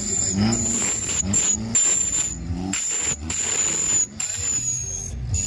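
Off-road tube-frame buggy's engine revving in repeated surges, rising and falling in pitch, as it pulls away on dirt with its wheels spinning.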